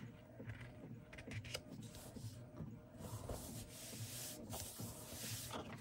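Hands pressing and smoothing a freshly glued paper tag flat onto a paper journal page, a faint rubbing of paper on paper that gets louder about halfway through.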